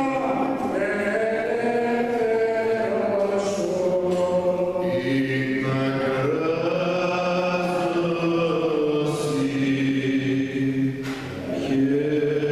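A man's voice chanting Orthodox Byzantine chant, long held notes gliding up and down, with a brief break for breath about eleven seconds in.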